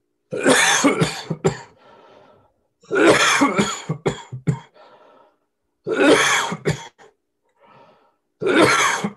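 A man coughing in four fits a few seconds apart, each of several sharp coughs followed by a breath.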